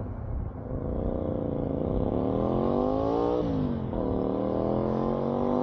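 Bus engine pulling away and accelerating: its pitch climbs, drops sharply at a gear change about three and a half seconds in, then climbs again in the next gear.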